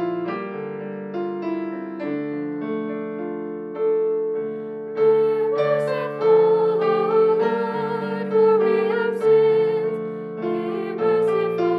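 Church keyboard playing slow, sustained chords as the introduction to the responsorial psalm, with a higher wavering melody line over the middle of the passage.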